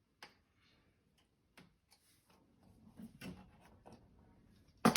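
Sparse light clicks and taps of a screwdriver working the screw of a wall outlet's cover plate, with a louder click near the end.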